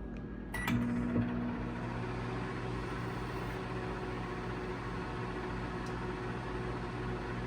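Whirlpool MT1100SHQ-1 microwave oven switched on and running empty. A keypad beep, then just under a second in it starts up with a steady hum that keeps going.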